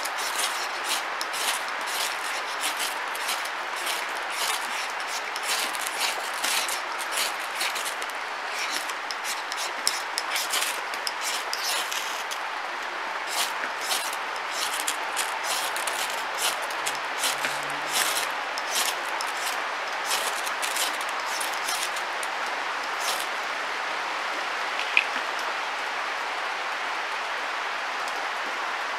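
Ferrocerium rod being struck hard and repeatedly with a striker, throwing sparks onto sycamore feather-stick curls: a quick, uneven run of sharp scrapes, often two or three a second, over a steady hiss. The scraping stops a few seconds before the end, once the curls have caught.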